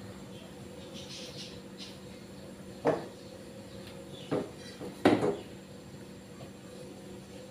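Three short metallic knocks of a stainless steel mixing bowl being handled on a stove top, the last the loudest with a brief clatter, over a steady low hum.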